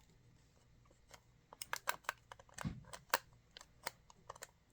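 Sharp plastic clicks and taps from an electric pepper grinder's housing being fitted back together and twisted to line up its alignment notch after the batteries go in. They come as a quick, irregular run that starts about a second and a half in and lasts roughly three seconds.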